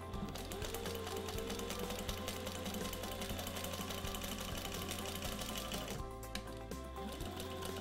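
Sailrite Fabricator industrial walking-foot sewing machine stitching pleats through vinyl and foam, with a rapid, even clatter of needle strokes. It pauses briefly about six seconds in, then starts stitching again.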